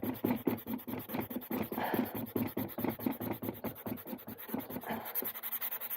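Sandpaper rubbed by hand in quick back-and-forth strokes, several a second, roughening a surface where old glue has been scraped off so that new parts can be stuck on. The strokes get lighter about five seconds in.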